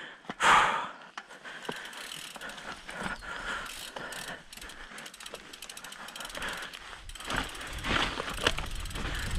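Mountain bike descending a dirt trail: the freewheel hub clicks rapidly as it coasts, with tyres and frame rattling over the ground. A short loud burst of noise comes about half a second in, and a low rumble builds near the end.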